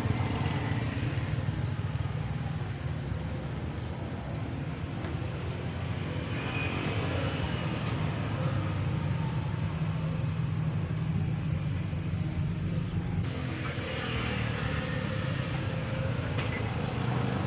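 A motor running with a steady low rumble, with a slight change in its tone about three quarters of the way through.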